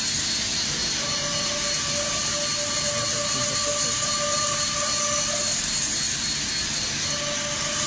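CNC lathe turning a steel bar under flood coolant: steady hiss of coolant spray over the machine's running noise, with a steady whine that drops out near the start and again for about a second and a half in the second half.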